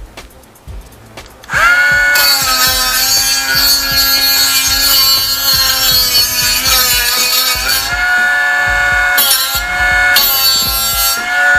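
Pantograph sofa mechanism squeaking as it is worked: a loud, long, high squeal that wavers slightly in pitch, starting about a second and a half in, with a few short breaks near the end. This is the squeak the mechanism should not make.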